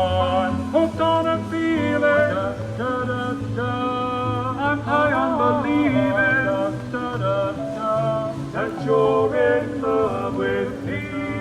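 Music: a song with a high voice sliding up and down between notes over instrumental backing with a steady bass line.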